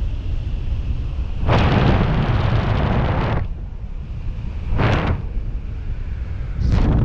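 Airflow rushing over the camera microphone of a skydiver under an open parachute canopy, with three loud gusts of buffeting: a long one about a second and a half in, a short one near five seconds, and another near the end.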